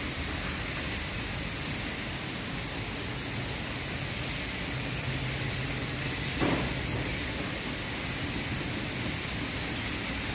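Steady hissing noise with one short knock about six and a half seconds in.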